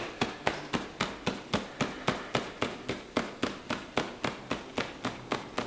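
Fingertips tapping rapidly and evenly on the upper chest through a suit jacket, about four to five taps a second. This is EFT acupressure-point tapping.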